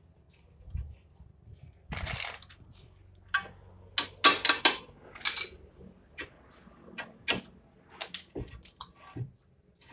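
Irregular metallic clinks and knocks of hand tools and bolts against the front shock absorber strut and its lower mounting on a Suzuki Carry, loudest in a quick cluster about four to five and a half seconds in.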